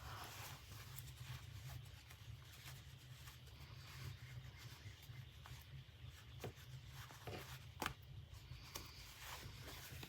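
Quiet hand-work sounds of fabric being handled: soft rubbing and rustling with scattered small clicks, the sharpest a little before the end, over a low steady hum.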